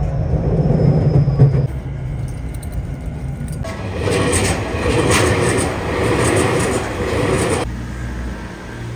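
Electric commuter train: a low rumble of the train running, then about three and a half seconds in a train passing close by with a rhythmic clatter of wheels over the rails, which cuts off suddenly near the end.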